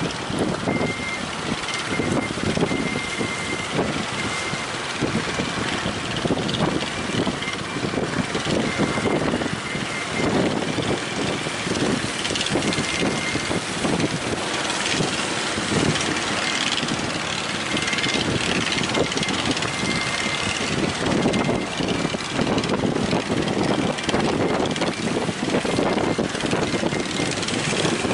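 Strong wind rushing over the microphone in irregular gusts, over the wash of breaking waves.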